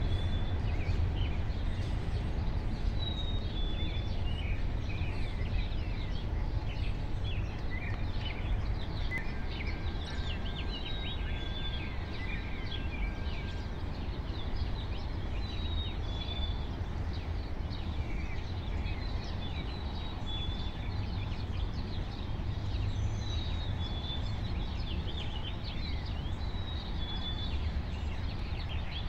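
Several songbirds singing and calling in an early-morning dawn chorus, one of them repeating a short high two-note call every few seconds, over a steady low rumble.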